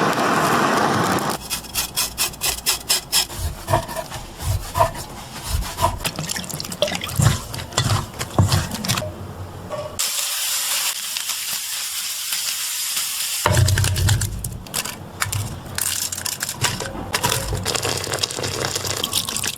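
Kitchen sounds: water running, with a series of sharp knocks and clicks.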